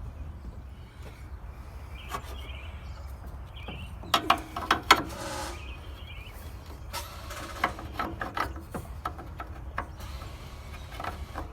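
Metal clicks and clanks of tools and parts being handled while a part of a vehicle's radiator and cooling system is fitted, with a cluster of sharp knocks about four seconds in and more clicks a few seconds later.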